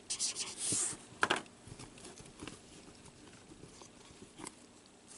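Felt-tip marker scratching briefly on paper as a number is written, with a short burst of noise about a second in, then only faint light taps.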